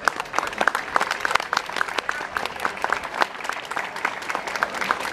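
Crowd applauding, many hands clapping at once in a dense, irregular stream of claps.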